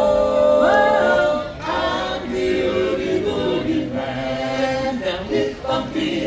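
A barbershop quartet of men's voices singing a cappella in close harmony. They hold a long chord, break off about one and a half seconds in, then sing on in short phrases.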